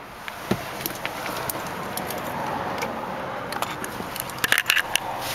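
Handling noise from a handheld camera being moved around inside a car cabin, over a steady background noise: a single click about half a second in, and a quick cluster of sharp clicks and rubbing near the end.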